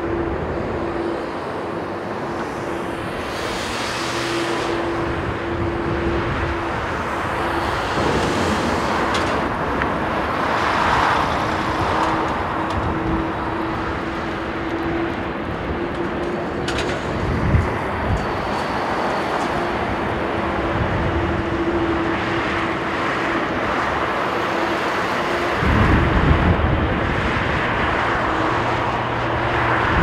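Boeing 777F freighter's GE90 turbofans running at low taxi power, a steady whine over the rush of strong wind on the microphone. A heavier low rumble comes in near the end.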